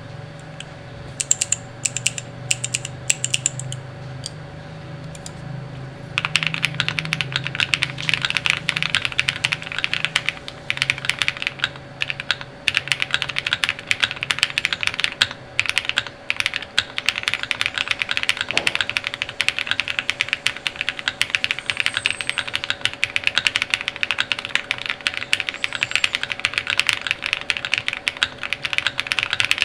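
Typing on a KBDFans Odin mechanical keyboard with a polycarbonate plate, foam dampening, Krytox-lubed Durock POM switches and DCX Hyperfuse keycaps. A few scattered keystrokes at first, then steady fast typing from about six seconds in.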